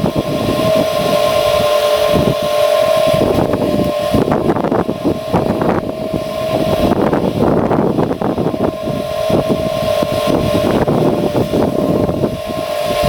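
Wood gas pickup truck running, with a steady high whine over an uneven rushing noise.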